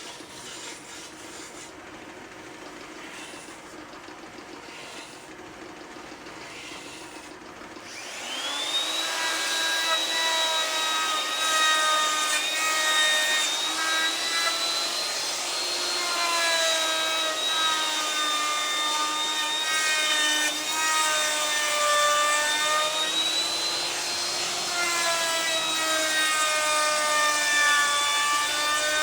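An electric woodworking power tool spins up with a quickly rising whine about a quarter of the way in, then runs on through wood, its pitch sagging and recovering as the cut loads it.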